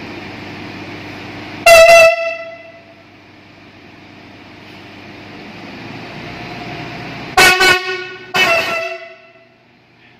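Alstom Coradia train horn sounding three short blasts as the train departs: one about two seconds in, then two close together near the end, the last two with a lower second tone under the main note. The train's engine runs steadily between the blasts.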